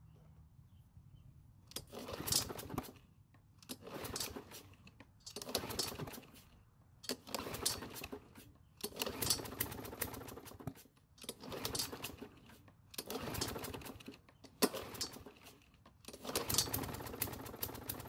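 Troy-Bilt XP mower's OHV engine being pull-started on its recoil rope: about nine pulls in a row, each a second-long burst of cranking with a short pause between. It nearly catches but does not start, which the owner puts down to the engine being flooded by a leaking carburettor.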